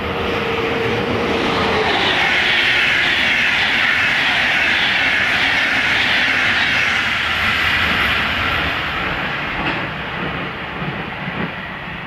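Electric InterCity train hauled by DB Class 115 locomotive 115 261 passing at speed. A steady whine drops in pitch as the locomotive goes by about two seconds in, then the coaches' wheels run past with a rhythmic clatter over the rails, fading away over the last few seconds with a couple of knocks.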